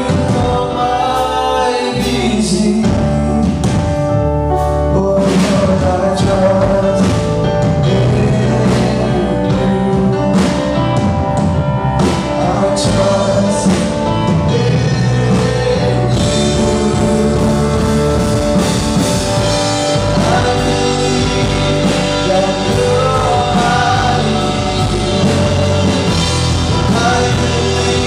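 A live worship band plays a contemporary gospel song, with a man and a woman singing together into microphones over electric bass, keyboard and drums. The accompaniment grows fuller about halfway through.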